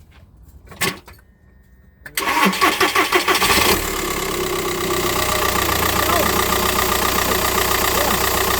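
2009 Seat Leon's engine being started as a test after a repair: a click and a brief steady tone, then the starter cranks it with rapid pulsing strokes for about a second and a half before it catches and settles into a steady idle.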